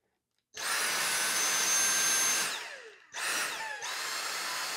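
Dyson V6 cordless stick vacuum switched on suddenly, running with a steady rush of air and a high motor whine, then switched off and spinning down with a falling whine. It is switched on again with a rising whine and runs on a little quieter.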